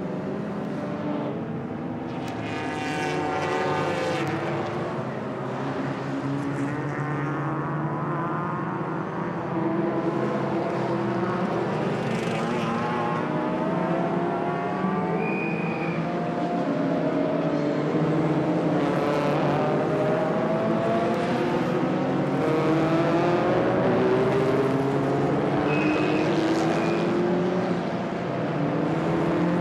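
Race car engines going by one after another at speed, each engine note rising and falling as the cars pass.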